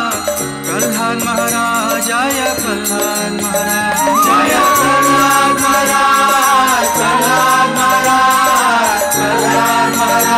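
Devotional kirtan music: a melody in long held, gliding notes over a steady drone, with hand cymbals (kartals) keeping a steady beat.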